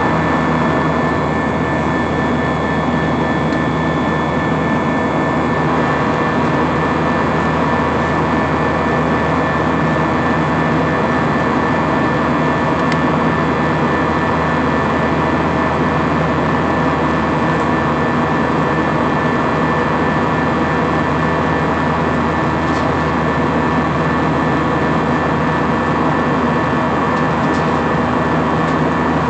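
Steady engine and airflow noise inside a jet airliner's cabin in flight, from the turbofan engine outside the window, with several steady humming tones in it.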